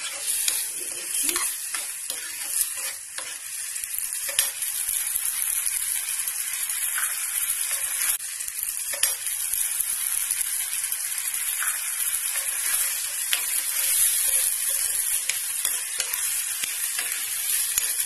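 Chilli-egg sauce sizzling steadily in a hot non-stick frying pan as a metal spoon stirs it, with a few light clicks of the spoon against the pan. A little water has just gone in to loosen it into a gravy.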